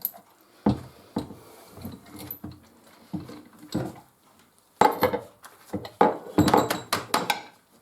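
Small hard parts clinking and knocking as someone rummages through them by hand, searching for a piece. A few scattered knocks at first, then a quick run of clatters from about five seconds in.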